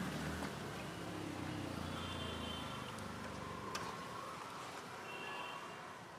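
Street background noise: a low rumble of traffic that fades out about halfway through, faint short high chirps, and a single sharp click just before the four-second mark.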